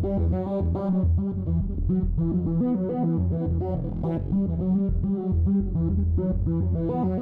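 Electronic loop from the 'Motion' subtractive software synthesizer-sequencer: rapid repeating sequenced notes over a steady deep bass line.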